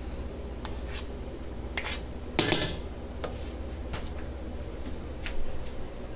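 A metal utensil clinking and knocking against the sides of a cooking pot of mashed potatoes: a handful of separate clinks, with the loudest little cluster about two and a half seconds in.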